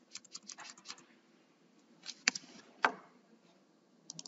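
Computer keyboard typing: a quick run of key clicks in the first second, then a few single, louder keystrokes about halfway through.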